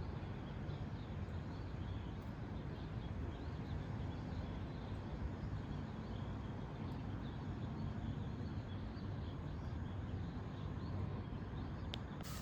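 Steady outdoor ambience with a low background rumble and faint high chirping repeated throughout.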